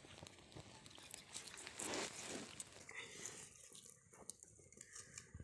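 Small campfire of sticks and bark crackling faintly, with scattered snaps and a brief rustle about two seconds in.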